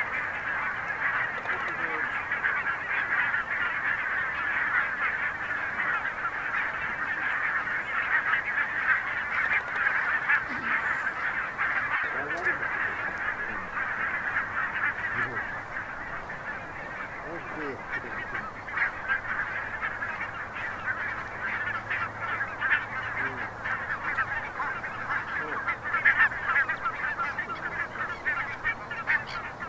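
Large flock of geese flying over, honking in a dense, unbroken chorus of many overlapping calls.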